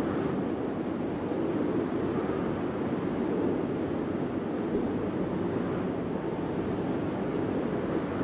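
Steady wind blowing over mountains, a continuous low rushing that swells slightly at times.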